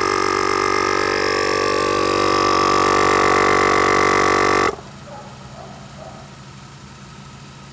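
Husky portable tire inflator's compressor running steadily while pumping up a car tire, then switched off abruptly a little over halfway through, leaving only a faint low hum.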